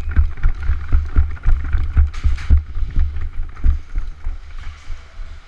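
Heavy low thuds from a body-worn action camera being jostled, about three a second, like the wearer's footsteps and gear knocking as he moves. They fade out after about four seconds, and a brief hiss comes about two seconds in.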